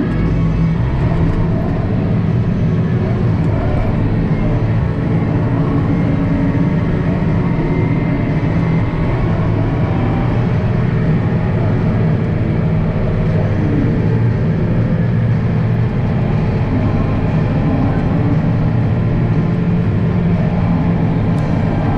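International Harvester 1586 tractor's six-cylinder diesel engine running steadily under load, a constant low drone.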